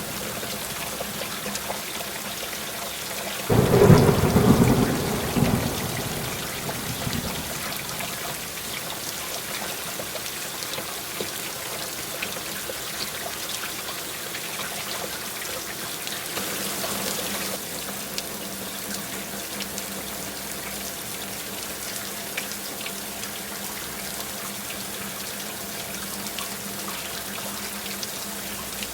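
Heavy rain falling steadily, with a loud clap of thunder rumbling in about three and a half seconds in and dying away over a few seconds; a fainter swell of rain or distant thunder comes past the middle.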